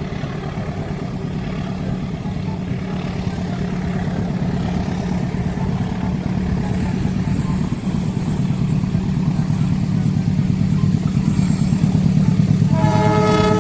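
Diesel locomotive engine running, growing steadily louder as it approaches. Its horn sounds about a second before the end.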